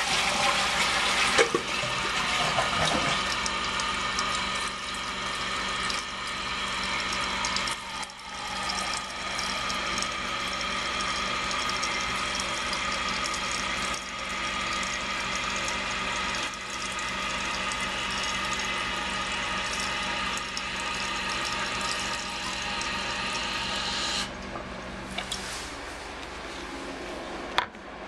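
2009 Eljer toilet flushing: a loud rush as the tank empties at the start, then the fill valve hisses steadily while the tank refills. The hiss cuts off abruptly about 24 seconds in as the valve shuts. A short sharp click comes near the end.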